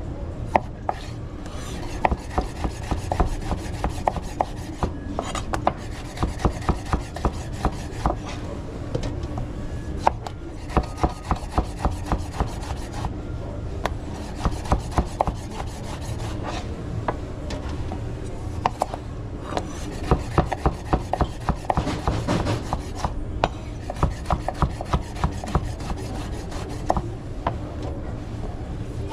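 Kitchen food preparation: repeated runs of quick rasping, rubbing strokes, several a second, each run lasting a second or two, over a steady low hum.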